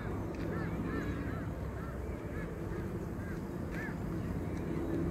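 Birds calling outdoors: a run of short, arched calls, several a second, over a steady low background rumble.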